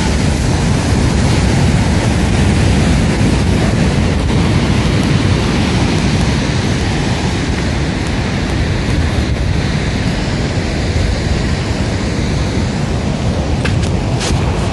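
Beach ambience: a steady roar of wind buffeting the microphone over the wash of ocean surf, with a few sharp clicks near the end.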